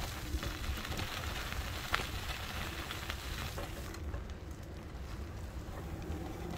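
Bicycle tyres hissing on the road surface while riding, over a low rumble of wind on the microphone. The hiss thins out about four seconds in.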